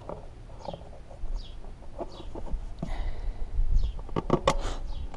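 Birds calling in short repeated chirps, with a few sharp clicks and knocks about four seconds in from the plastic air filter cover being fitted and fastened on the generator engine.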